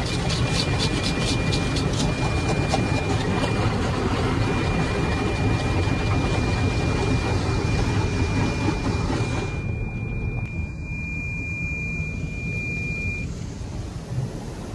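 An automatic car wash heard from inside the car: water spray and cloth strips beating on the body and glass, rapid slapping at first over a steady rush and low rumble. A thin steady high tone runs underneath, and the hiss of the spray drops away about two-thirds of the way in, leaving the rumble.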